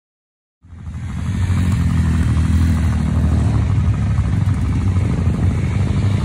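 Several dual-sport motorcycles idling together. Their engines come in suddenly after dead silence about half a second in, build up over a second, then run steadily.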